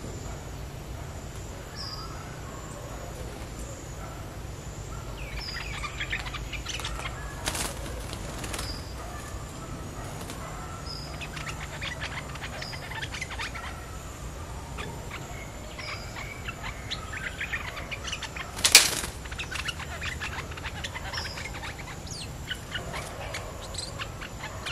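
Caged decoy bulbul giving scattered short chirps and calls, with a faint steady background. Two brief loud noises break in, the louder about nineteen seconds in.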